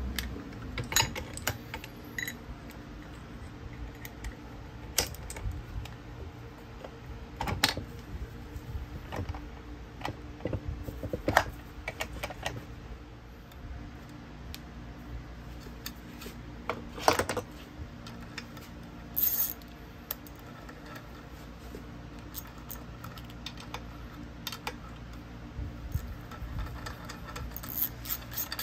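Metal parts of a starter motor clinking and knocking as the armature is fitted into its cast aluminium drive-end housing held in a vise: scattered single clicks and knocks, with a quick run of small clicks near the end. A steady low hum runs underneath.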